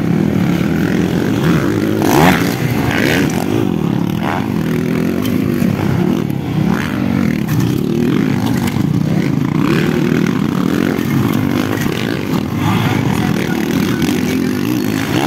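Motocross dirt bike engines racing on a dirt track, revving up and down over and over as the riders take the jumps and turns.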